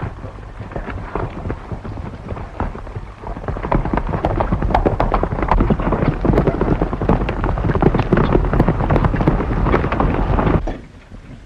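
Hoofbeats of several galloping horses: a dense clatter of hooves that grows louder about three and a half seconds in and cuts off suddenly near the end.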